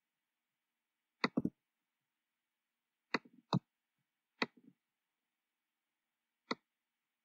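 Computer mouse clicks: about six short, sharp single clicks spaced a second or two apart.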